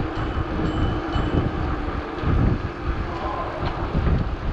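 Wind buffeting the microphone and bicycle tyres rumbling on a paved path while riding through a railway tunnel: a steady rushing noise with an uneven low rumble.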